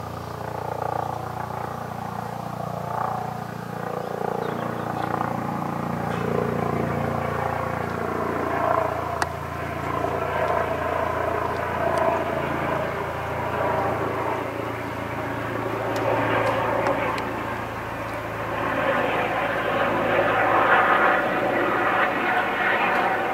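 Eurocopter EC135 helicopter flying overhead, heard from the ground as steady rotor and turbine noise. It grows louder from about 19 seconds in as the helicopter draws nearer.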